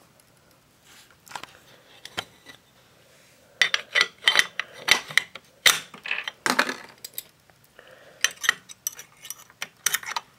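Hands handling a galvanized metal meter socket: after a few quiet seconds, a string of sharp metallic clicks, clinks and knocks.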